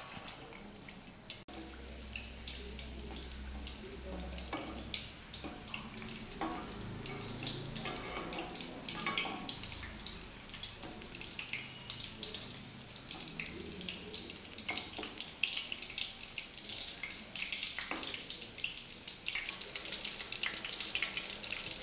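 Egg-dipped fish cutlets deep-frying in hot oil in an aluminium kadai: a steady sizzle full of small crackles, with occasional clicks and scrapes of a perforated steel spoon moving them in the pan.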